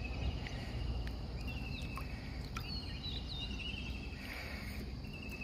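Outdoor riverside ambience: a steady insect trill with a few short bird calls, over a low steady background noise.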